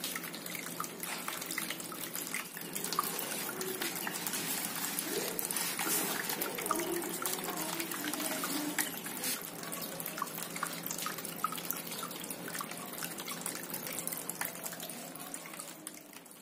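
Running water with drips and splashes, fading out at the end.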